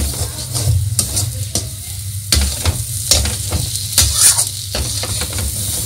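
Metal spoon stirring and scraping a thick chana dal filling around a metal kadhai as it cooks down to a dry stuffing, with irregular scrapes and knocks against the pan over a steady hiss of frying.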